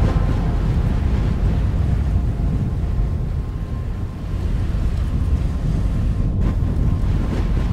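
Steady low wind noise, with a faint thin steady tone coming in about three seconds in and a brief dropout a little after six seconds.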